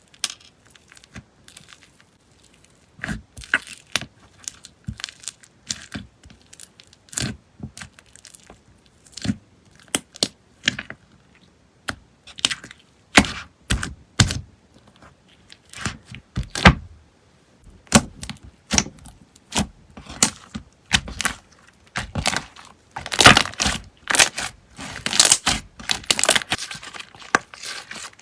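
Slime being pressed and squeezed by hand, making irregular sticky pops, clicks and crackles. These come thicker and louder in the last few seconds.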